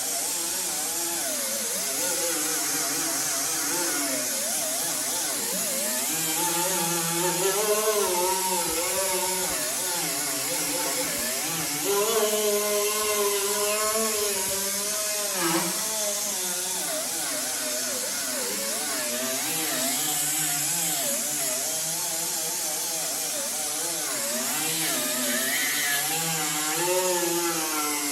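A high-speed cut-off tool running on sheet-metal car body panels. Its whine wavers up and down in pitch as the load changes, over a steady hiss, and it is slightly louder around the middle.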